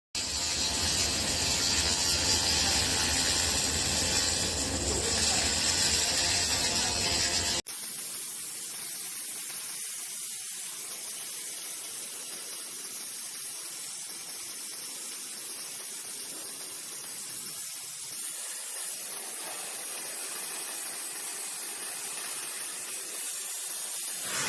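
Laser welding machine working: a loud, steady hiss that drops abruptly about eight seconds in to a fainter, thinner hiss.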